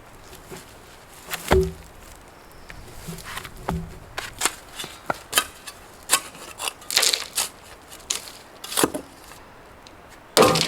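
Irregular knocks and clatters of wood on wood, lighter clicks between a heavier thud about a second and a half in and a loud double knock near the end.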